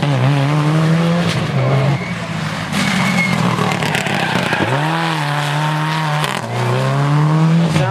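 Rally cars' engines at full throttle as they pass one after another, the pitch climbing and then dropping sharply several times with each gear change.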